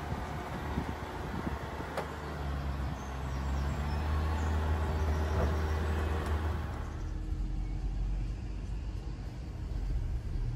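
A 2020 Land Rover Defender's engine running as it slowly climbs a steep wooden ramp, a low rumble that grows louder through the middle. About seven seconds in, the sound changes abruptly to a duller, muffled low drone heard from inside the cabin.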